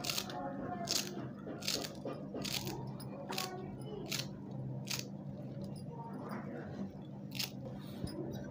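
A kitchen knife chopping fresh green coriander on a plate: crisp chops where the blade cuts through the leaves and taps the plate, about one a second, with a longer pause near the end.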